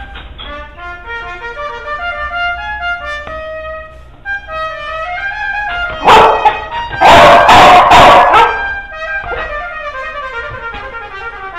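A dog barking, a quick run of loud barks between about six and eight and a half seconds in, over background music with a brass melody.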